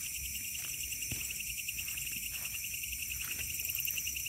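Night insect chorus: crickets trilling steadily, several high, fast-pulsing voices at different pitches layered together, with a few faint knocks.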